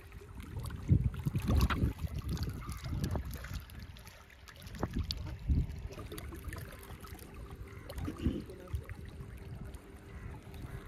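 Wind rumbling in gusts on the microphone, with small waves lapping and splashing against a rock embankment.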